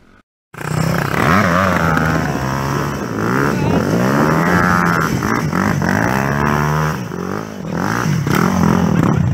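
Dirt bike engine revving up and down over and over as the bike slides around in tight circles on loose dirt, the pitch rising and falling every second or so.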